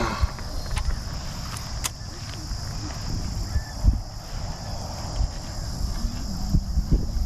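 Steady high-pitched insect buzz over a low rumble of wind on the microphone, with a few soft knocks of handling, the loudest about four seconds in.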